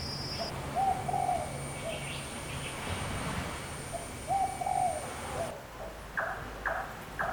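A dove cooing in two short phrases over a steady outdoor background. About five and a half seconds in the background changes abruptly, and a run of short, sharp sounds follows, about half a second apart.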